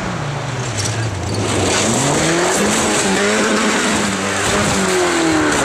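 Rally car engine revving hard on a gravel stage, its pitch rising and falling through gear changes, with tyres scrabbling on loose gravel. Near the end come the knocks of the car striking the bank as it goes over.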